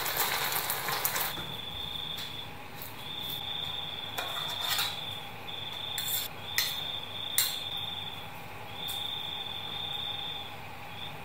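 Egg sizzling as it deep-fries in hot oil for about the first second, then a metal spoon clinks several times against a ceramic plate as sauce is spooned over. A steady high trill comes and goes behind it.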